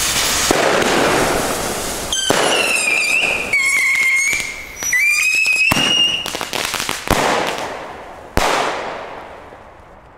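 Nico Supreme Double Shots firework tubes firing: a rushing hiss as they go off, then shrill whistles for about four seconds, then two sharp bangs a little over a second apart, the second ringing out as it fades.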